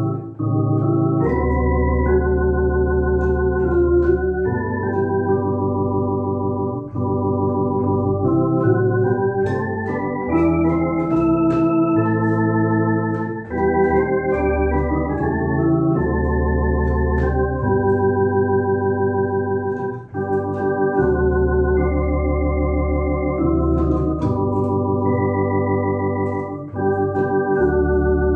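Electronic organ playing a slow hymn in full sustained chords over a deep bass line, the chords changing every second or so, with a slight vibrato on the held notes.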